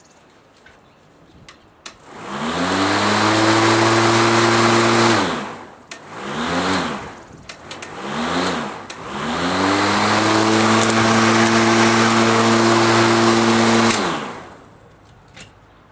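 Homelite 24-volt cordless electric lawn mower's motor and 20-inch blade spinning up with a rising whine and a fan-like whoosh of air, running steadily for about three seconds and winding down. Two short blips follow, then it spins up again, runs steadily for about five seconds and winds down near the end.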